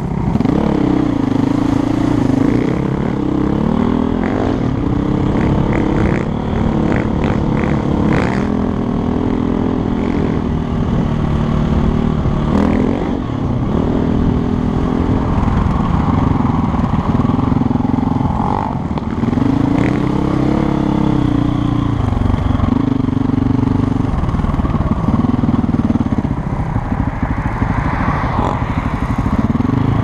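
Single-cylinder four-stroke engine of a 2007 KTM 450 EXC enduro bike, heard from a camera on the bike, revving up and falling back again and again as the rider accelerates and shifts. A run of short clatters comes about six to eight seconds in.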